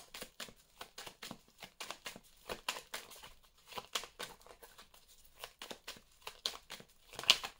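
A deck of oracle cards being shuffled by hand: a quick, irregular run of soft card snaps and slides, several a second, with a sharper snap near the end.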